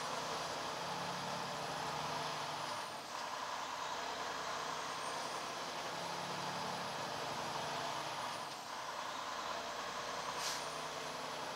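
Steady drone of a semi truck's engine and road noise heard inside the cab while driving, with a faint high whine that rises and falls.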